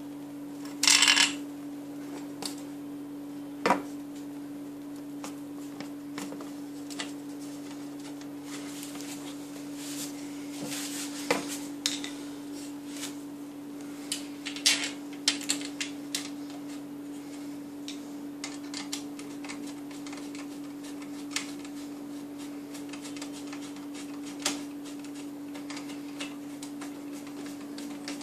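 Scattered metallic clinks, knocks and scrapes from the metal tube frame of a baby cradle being fitted together by hand and with a screwdriver, over a steady low hum. One loud scrape about a second in, and a run of clicks midway.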